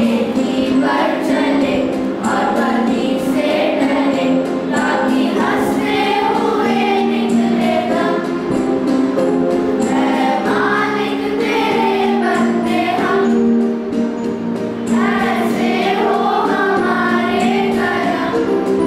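A girls' school choir singing a Hindi song together in unison, over a steady accompaniment of held low notes.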